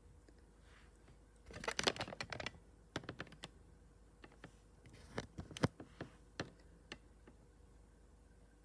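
Typing on the HP laptop's keyboard: a quick run of keystrokes about one and a half seconds in, then shorter bursts and a few single key presses.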